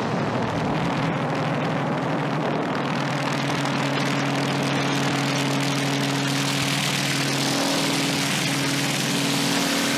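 Hardcore techno track in a beatless stretch with no kick drum: a dense, noisy synth drone with a couple of held low notes and the deep bass cut out.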